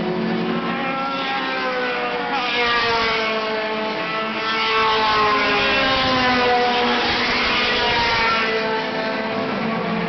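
Race car engines at high revs on the circuit, a continuous engine drone made of several overlapping tones whose pitch slowly falls as cars go by. It swells twice, about two and a half seconds in and again around five to eight seconds in, as cars pass closer.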